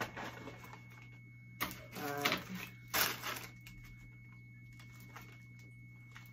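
Plastic packaging rustling and crinkling as items are handled and packed into a plastic basket, in two short bursts about a second and a half and three seconds in, with light clicks between. A steady low electrical hum runs underneath.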